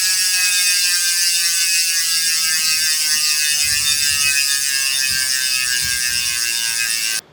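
Bicycle rear hub freehub buzzing as the spun carbon wheel coasts, a loud, even ratchet buzz whose pitch falls slowly as the wheel slows. It cuts off abruptly about seven seconds in.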